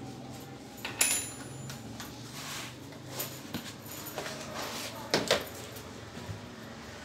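Tools being handled and put down on a concrete floor: a sharp metallic clank with a brief ring about a second in, scattered light knocks, then two loud knocks close together just past the middle as the corded drill is set down.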